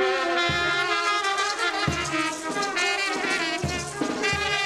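Brass band playing folk dance music, with trumpets carrying the melody over regularly repeated low bass notes.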